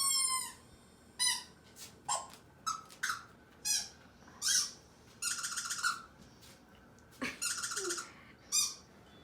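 A squeaky toy squeaking in a string of about a dozen short, high-pitched squeaks at irregular intervals, two of them longer and buzzier.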